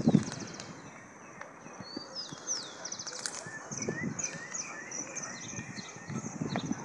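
A horse's hooves thudding dully on grass under a rider, a few soft thumps at the start, in the middle and near the end. Birds chirp throughout, with quick repeated chirps and a sweeping call about two seconds in.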